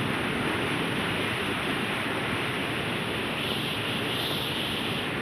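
Steady rush of fast-flowing floodwater, with wind buffeting the microphone; the hiss swells a little about three and a half seconds in.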